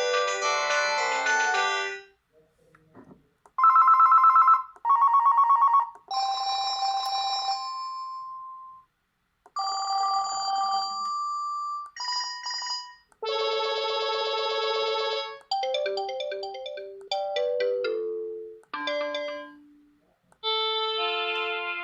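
Panasonic KX-PRS110 cordless phone handset playing its ringtones one after another, each a few seconds long with short gaps between them. The end of a polyphonic tune is followed by a pause with a few faint clicks, then two loud bursts of a trilling bell-like ring, then electronic chime tones, and then several short melodies.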